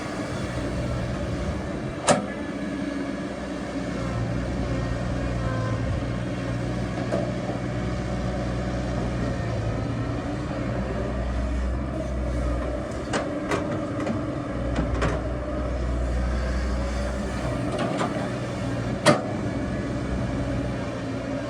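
Excavator's diesel engine running, its low drone rising and falling with the work, with a few sharp knocks, the loudest about two seconds in and near the end.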